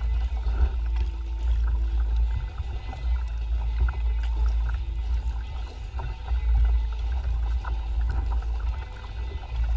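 Wind buffeting the microphone in a steady low rumble, with water splashing and slapping against a kayak's hull as it moves across choppy water.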